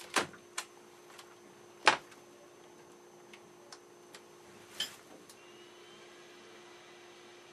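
Several sharp clicks and knocks, the loudest about two seconds in, over a steady low hum with a faint high whine.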